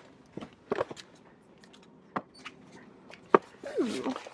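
Boxed toys in cardboard and plastic packaging being handled and shifted on a store shelf: several sharp clicks and knocks, the loudest a little over three seconds in, then a short spoken "ooh" near the end.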